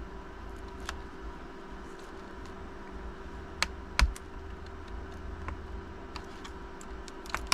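A few sharp clicks and taps of small tools and plastic parts on an opened Chromebook, over a steady hum.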